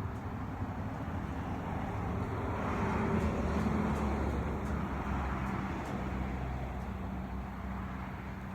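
A motor vehicle passing by: a low engine hum and tyre noise that grow louder to a peak a few seconds in, then fade away.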